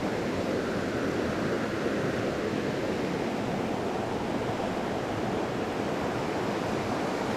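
Small creek running steadily over a rocky riffle into a pool, an even rushing of water.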